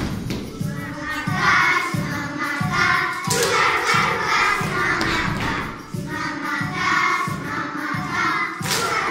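A group of young children singing a song together, with a steady thudding beat about twice a second underneath.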